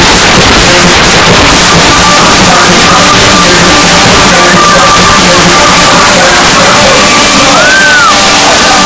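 Loud club music over a nightclub's sound system, recorded on a phone and distorted from overload, with a held high note and a short swooping glide in pitch near the end.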